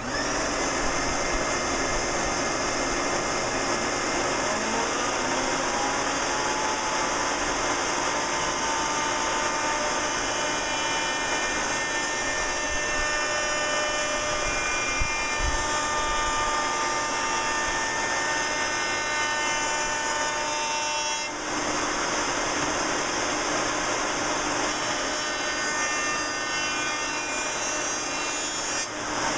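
Table-mounted router with a 3/8-inch round-over bit, coming up to speed over the first few seconds and then running steadily while the edge of a wooden frame is fed past the bit. The sound dips briefly about two-thirds of the way through, then carries on.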